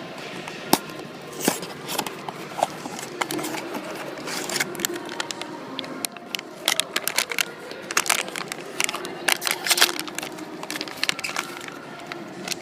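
Hands opening a small cardboard blind box and its wrapper: irregular crackling, crinkling and sharp clicks of packaging, busiest in the second half.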